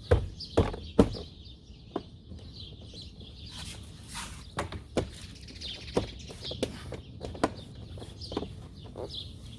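Knocks and plastic clicks as a car's interior door trim panel is pressed and worked back into place: three loud knocks in the first second, then lighter clicks every second or so. Birds chirp in the background.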